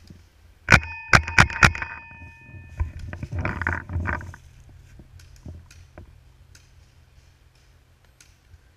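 Four sharp paintball marker shots in quick succession about a second in, followed by a couple of seconds of rustling in dry leaves as the player moves, then only a few faint clicks.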